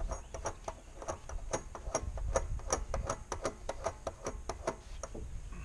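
Rapid, even clicking, about five clicks a second, as a plastic bulkhead fitting is spun by hand the reverse way into a plastic rain barrel's spigot hole to make its threads catch; the clicking stops near the end.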